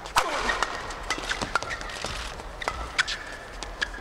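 Badminton rackets striking a shuttlecock in a fast rally: a string of sharp hits, roughly one every half second to a second, the first the loudest. Between them come brief squeaks of shoes on the court floor over a low crowd hum.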